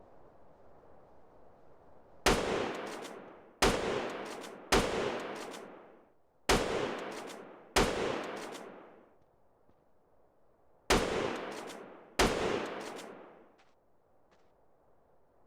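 Seven loud, sharp bangs at uneven intervals, each cutting in suddenly and dying away over about a second. They are spaced about a second or two apart, with a longer gap of about three seconds before the last two.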